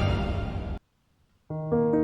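Background music: a full, dense track ends abruptly less than a second in, and after a short gap of silence a slow piano piece begins with sustained notes over a low bass note.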